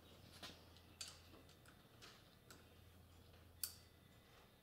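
A few faint, scattered metallic clicks from a torque wrench and socket being moved onto the next cam journal cap bolt, with a sharper single click about three and a half seconds in.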